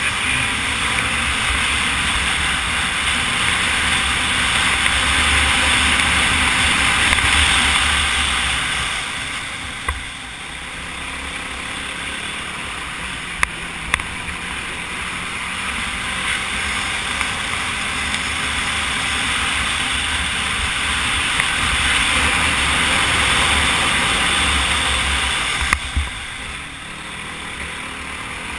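Quad's engine running at speed, mixed with a rushing noise of wind on the onboard microphone. It swells and eases twice, and there are a few sharp knocks.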